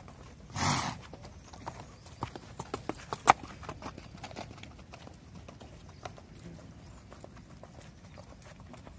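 Horses' hooves on a sand arena: a run of uneven knocks through the first half, the sharpest and loudest about three seconds in, fading to fainter hoofbeats. A short burst of noise comes just under a second in.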